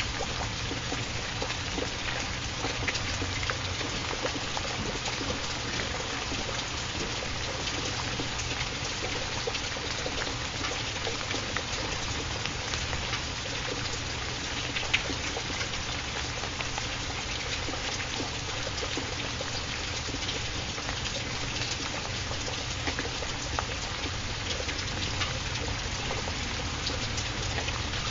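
Steady rain: an even hiss with scattered single-drop ticks over a low rumble.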